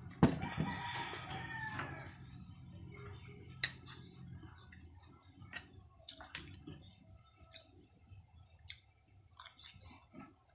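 A spoon clinking and scraping against a wok, with chewing and mouth sounds between. The sharpest clinks come just after the start and about three and a half seconds in.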